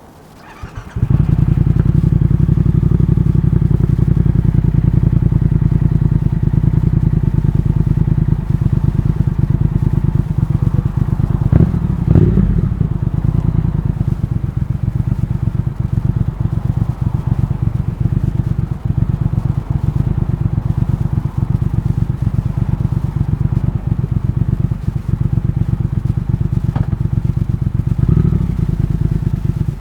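Triumph Thruxton RS 1200 cc parallel-twin engine running through a British Customs GP slip-on exhaust with X-pipe, a deep, steady, even pulse that comes in about a second in, with a brief change in the note around the middle, as when the throttle is blipped.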